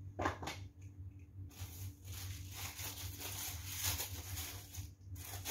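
Handling noise from fitting parts of a ring light tripod stand: a couple of sharp clicks, then about three seconds of rustling and scraping that stops shortly before the end, over a steady low hum.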